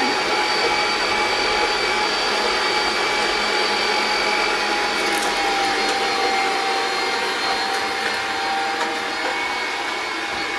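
An electric appliance's motor and fan running steadily, a constant airy noise with a steady whine over it.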